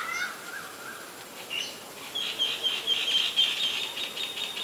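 A bird calling: a short high note, then from about two seconds in a rapid run of short, high, evenly repeated notes, about seven a second.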